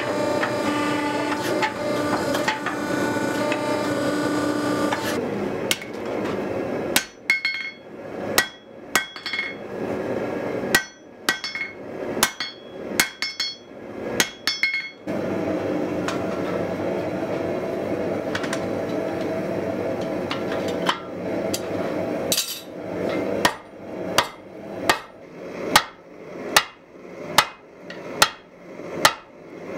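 Hot spring steel forged by hand hammer on an anvil: runs of hammer blows with a ringing note, about one to two a second. Between the runs a steady machine hum with a fixed pitch, the forge equipment running.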